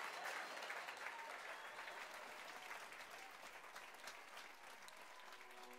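Audience applauding, slowly fading away.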